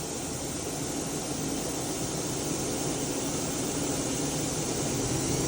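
Daewoo DMV-3016 CNC vertical machining center running under power, its spindle turning. A steady whirring hiss that grows gradually louder.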